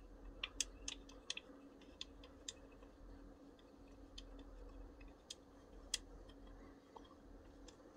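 Faint scattered clicks and ticks of a hex key turning a screw into a tight, undrilled hole in a 3D-printed plastic part. Several come close together in the first second or so, then only now and then.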